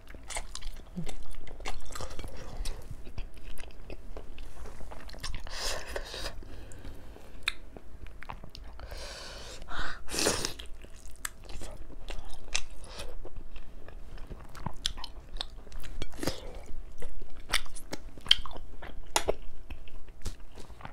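Close-miked chewing and biting of soft steamed chicken momos, full of short wet mouth clicks and smacks. There are a few louder breathy slurps about six and ten seconds in.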